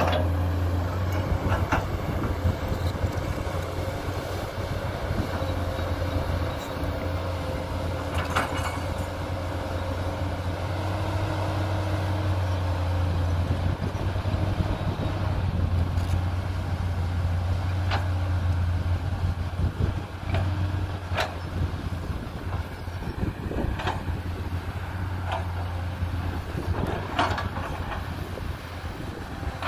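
The diesel engine of a JCB 210 tracked excavator runs steadily as it digs. Short knocks and clanks come now and then from the bucket and arm working the dirt.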